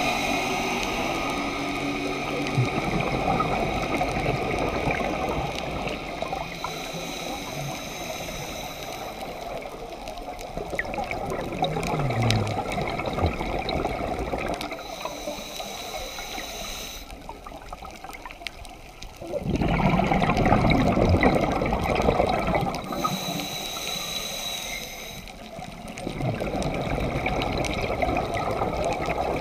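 Water rushing and bubbling, as heard by an underwater camera, in several cut-together clips; it swells louder about two-thirds of the way in and again near the end.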